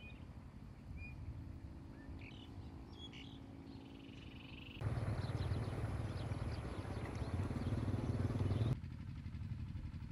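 Small birds chirping a few times over a low outdoor rumble. About five seconds in, a much louder rushing rumble takes over and cuts off abruptly nearly four seconds later, leaving a quieter low rumble.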